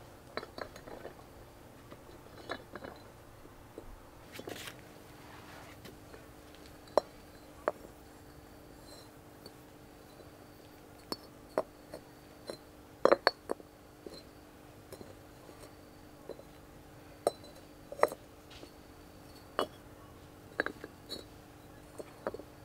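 Irregular light clinks and knocks of hard objects being handled, about a dozen sharp taps at uneven intervals, over a faint steady hum.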